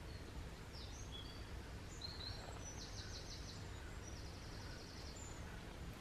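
Small birds singing: scattered short high chirps, with a rapid trill about three seconds in and another about four seconds in, over steady low background noise.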